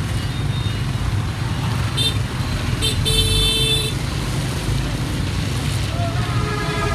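Steady low rumble of a motorbike riding in traffic, with a vehicle horn honking: two short toots about two seconds in, then a longer toot of about a second.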